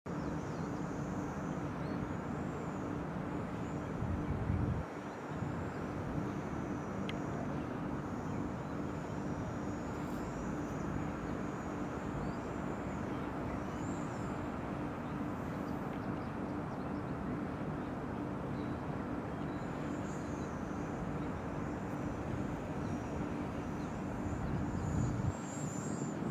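Steady outdoor background rumble with a low hum, swelling briefly twice, and faint high chirping now and then.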